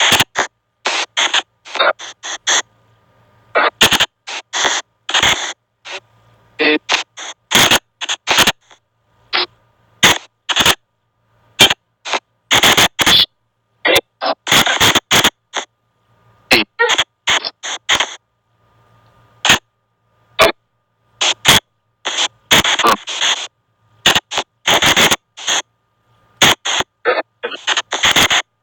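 Spirit box app on an Android phone sweeping, putting out a rapid, choppy stream of short bursts of radio-like static and clipped voice-like fragments, with brief silent gaps between them.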